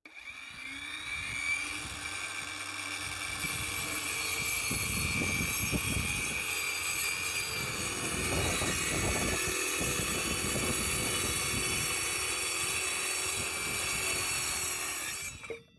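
Electric circular saw running at full speed and cutting a straight line through a wooden board: a steady high motor whine that stops abruptly near the end.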